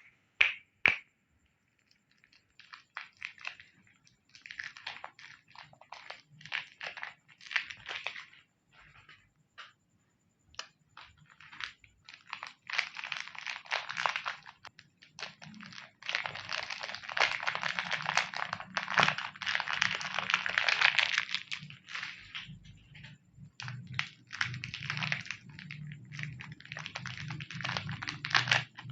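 Plastic wrappers of Chupa Chups lollipops crinkling as they are unwrapped by hand, in irregular crackly bursts with short pauses. The crinkling grows denser and more continuous in the second half.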